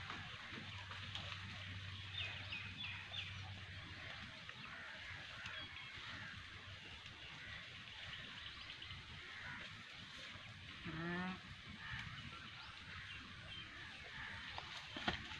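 Outdoor rural background with small birds chirping on and off, and about eleven seconds in one short honking call like a goose's.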